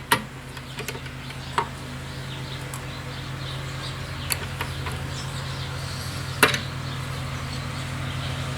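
Drill press motor running steadily while the bit cuts the hole in the shell holder a little deeper. A few sharp clicks or knocks come through, the loudest about six seconds in.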